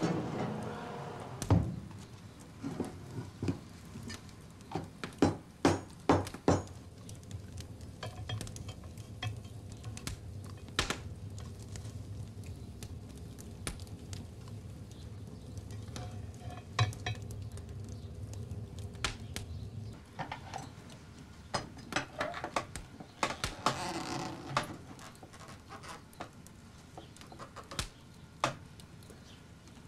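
Irregular metallic clanks and knocks of iron tools and plates as cow horn is heated and worked by hand for comb making. A low steady rumble runs through the middle, and there is a short hiss a little after the middle.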